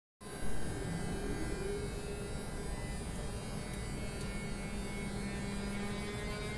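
Siemens Vectron electric locomotive starting a freight train from a standstill: its traction converters and motors hum with several steady tones, one of them slowly rising in pitch as the locomotive gathers speed.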